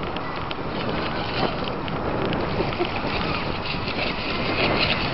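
Radio-controlled model speedboat running fast across the water, heard through steady wind noise on the microphone.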